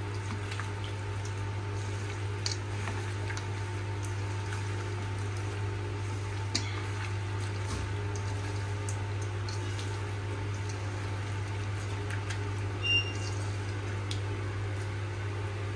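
Steady low hum with faint tones over it, and scattered soft clicks as chicken is mixed into its yogurt-and-spice marinade.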